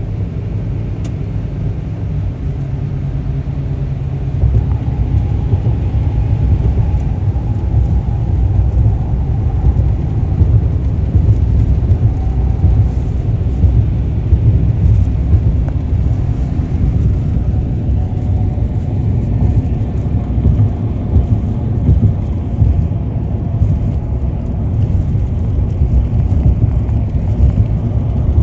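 A car driving along a road: steady low rumble of engine and tyres, growing louder about four seconds in and holding there.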